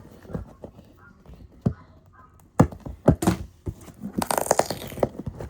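Cardboard toy box and its packaging being handled and opened: scattered clicks and knocks, a few loud thuds about two and a half to three and a half seconds in, then a rustling, tearing scrape near the end.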